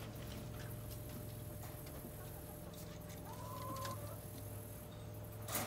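A backyard chicken calling, one drawn-out call of under a second about three seconds in, over a steady low hum; a sharp clack near the end.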